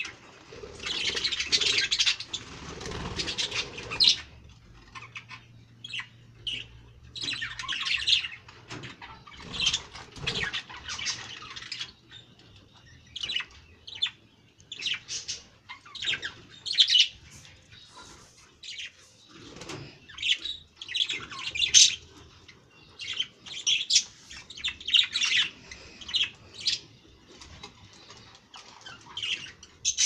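A flock of budgerigars chirping and chattering, short calls coming thick and fast, busiest in the first few seconds.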